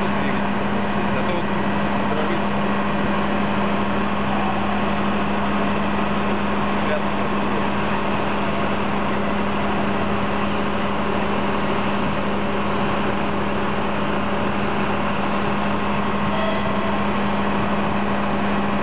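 Standing locomotives running in place: a steady, unchanging mechanical hum with one strong low tone and fainter higher tones over it.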